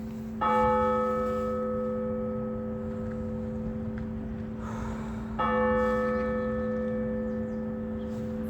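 Orthodox church bell struck twice, about five seconds apart, in slow strokes calling to a service. Each stroke rings on and fades slowly over the steady hum of the bells still sounding.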